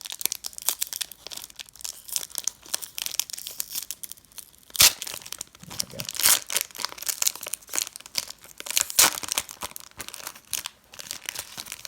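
Crinkling and tearing of a Pokémon booster pack wrapper being torn open and handled, a dense run of crackles with one sharp loud crack about five seconds in.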